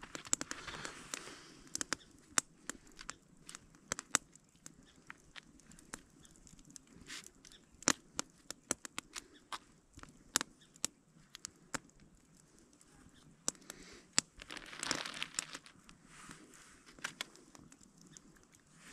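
A wood campfire crackling with sharp pops throughout, while a plastic bag and wrapper crinkle as they are handled, loudest about a second in and again around fourteen to fifteen seconds in.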